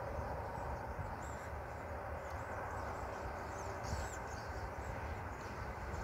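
Scattered short chirps and calls from a flock of small birds over a steady low rumble.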